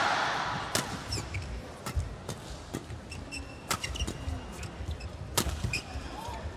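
Badminton rally: a string of sharp cracks as rackets strike the shuttlecock, about a dozen at uneven intervals, with brief squeaks of court shoes on the floor between them.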